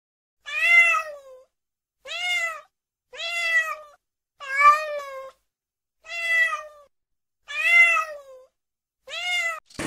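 Domestic cat meowing: seven separate meows about a second and a half apart, each rising then falling in pitch.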